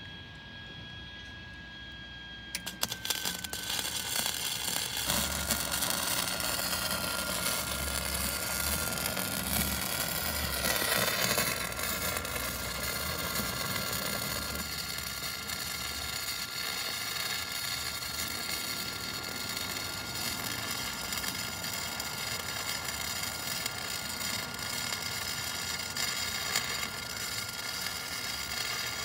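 Wire-feed welding on a steel pit bike frame: the arc crackles and sizzles in long continuous beads, starting about two and a half seconds in. A steady engine hum runs underneath, its pitch dipping slightly as the welding starts.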